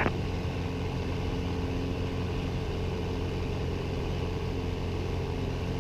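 Pitts Special biplane's piston engine and propeller running steadily in flight, heard from the cockpit.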